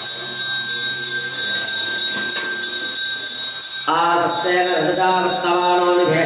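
A temple hand bell is rung steadily throughout, about four strokes a second. Voices chanting the Veda recitation of the homa ritual come in about four seconds in.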